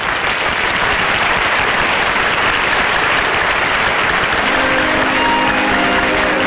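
Studio audience applauding at the end of a song, with the studio orchestra's bridge music coming in about two-thirds of the way through.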